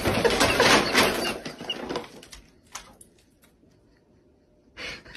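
Brown paper shopping bag rustling and crackling loudly as a cat moves about inside it, dying away after about two seconds into a few light knocks. A short burst of similar noise comes near the end.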